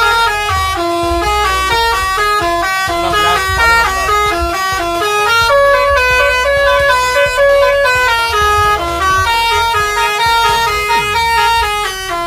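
A Basuri telolet multi-tone bus horn on a Rosalia Indah coach playing a tune: a long, fast run of changing horn notes, several a second, with no break.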